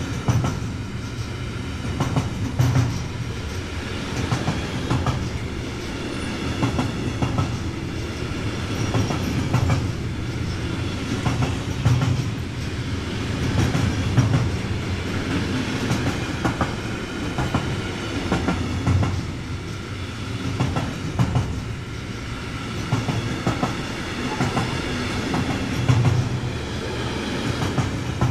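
A long train rolling past at steady speed: a continuous rumble, with its wheels clacking over rail joints every two seconds or so.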